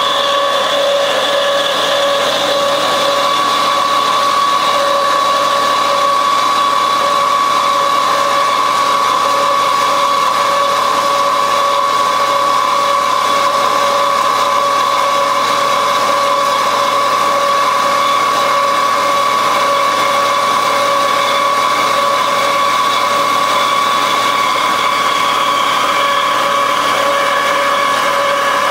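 Horizontal metal-cutting band saw running steadily as its blade cuts through a 5/8-inch round shaft, a constant hum with a higher whine.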